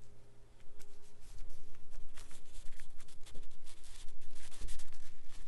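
Rustling and scraping close to the microphone, many short irregular scratches starting about a second in, over a low steady hum that fades out shortly after.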